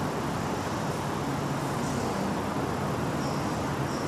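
Steady background noise: an even hiss with a faint low hum underneath, and no distinct events.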